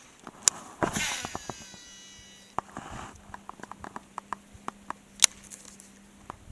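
Baitcasting fishing reel: a sharp click, then a whirring that falls in pitch as the spool pays out line, then a low steady hum with scattered light ticks as the reel is worked.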